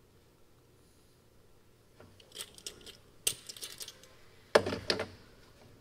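Scattered light metallic clinks and clicks, with a couple of heavier knocks about three and a half and four and a half seconds in: tools or metal parts being handled on a workbench.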